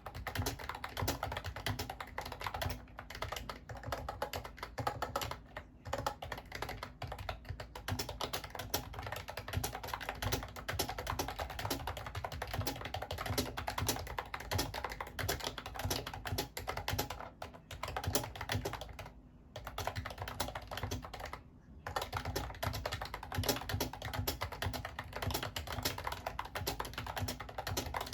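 Continuous fast typing on a Mofii Candy wireless keyboard, a dense run of key clicks broken by a few short pauses.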